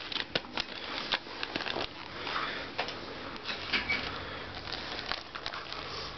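Wrapping paper crinkling and crackling in irregular clicks as a dog mouths and chews a small wrapped present.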